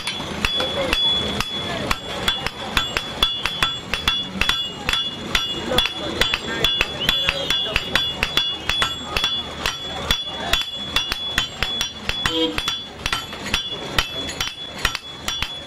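Blacksmiths' hammers striking red-hot iron on an anvil in quick, steady succession, about three to four blows a second, each blow with a high metallic ring.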